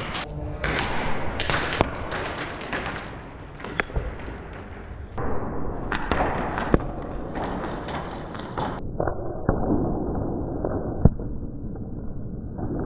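Airsoft game sounds: a steady rustling noise of movement, broken by a handful of single sharp cracks.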